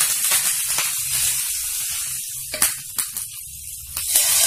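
Curry leaves sizzling in hot ghee with cashews and pepper, a loud hiss that fades by the middle, with a couple of sharp clicks. Near the end a short, louder sizzle as the hot ghee tempering is poured onto the cooked rava.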